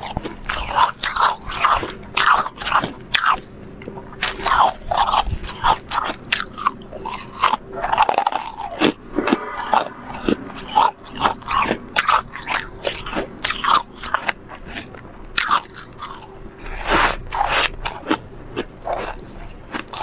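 Refrozen freezer frost being bitten and chewed right at a handheld lavalier microphone: an irregular run of short, crisp crunches, several every couple of seconds.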